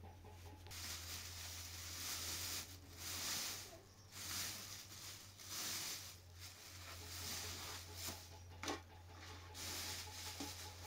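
A thin plastic bag rustling and crinkling in bouts as flatbread is handled in and out of it, with one sharp click about three-quarters of the way through.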